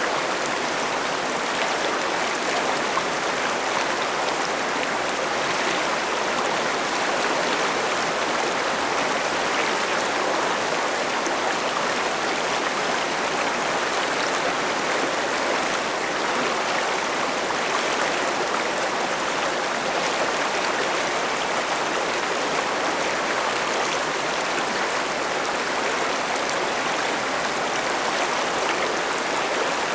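River water flowing steadily, an even rushing with no changes.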